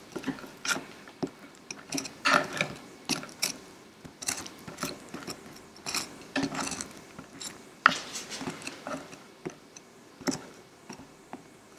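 Chopsticks clicking and tapping against the dish as fried yakgwa are pressed and turned in sticky syrup, irregular clicks with soft squishes between them.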